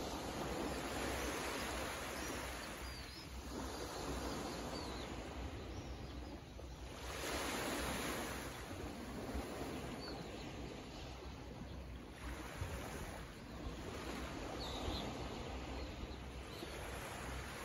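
Small waves on a calm sea lapping up a sand beach, each wash swelling and fading every few seconds. A few faint, short, high chirps can be heard over it.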